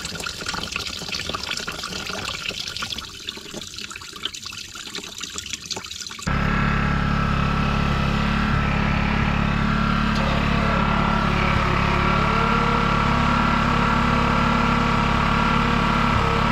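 Diesel fuel draining out of a tractor's fuel tank in an uneven splashing trickle. About six seconds in it cuts off suddenly and gives way to a louder, steady mechanical hum.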